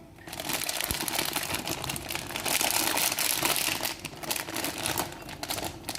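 Crinkling and crumpling of handled packaging, a dense run of small crackles that eases off briefly about two thirds of the way through.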